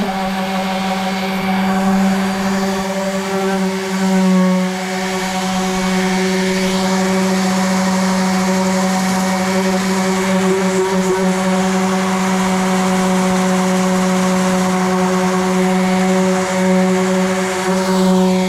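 Electric sander running steadily on the dresser's stained wood, a constant motor hum with a brief dip in level about four seconds in.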